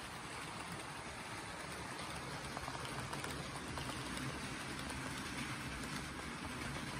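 HO scale model freight train running on its track: a steady rolling rumble of the cars' wheels on the rails, with faint clicks.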